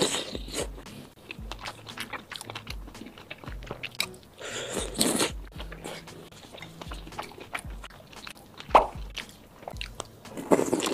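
Close-miked biting and chewing of a large wonton filled with meat and shrimp. Louder mouthfuls come about halfway through, and a fresh bite into a crab-roe-filled dumpling pouch comes near the end.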